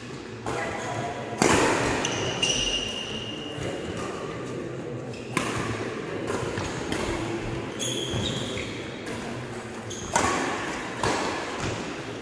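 Badminton doubles rally: a handful of sharp, irregularly spaced racquet strikes on the shuttlecock, echoing in a large hall, with short high squeaks of court shoes between them.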